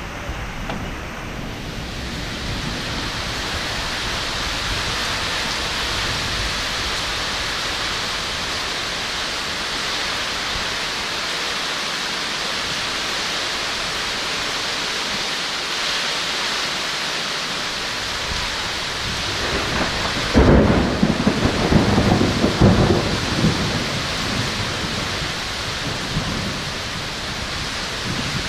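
Heavy rain pouring down steadily in a thunderstorm. About twenty seconds in, a sudden loud crack of thunder breaks out and rumbles for a few seconds before the rain alone carries on.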